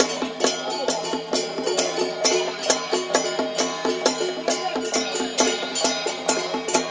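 Traditional festival music: a steady beat of percussion strikes, several a second, over sustained melody notes.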